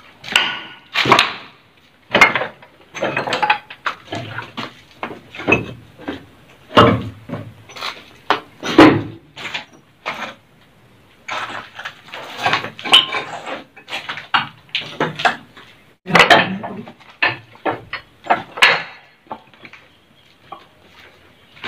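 Irregular footsteps over broken tiles and loose rubble on a concrete floor, with scrapes and small knocks of debris.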